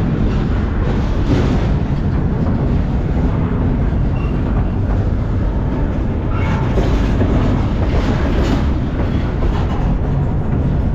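A freight train in motion, heard from aboard a car: a steady, loud low rumble with metallic rattling.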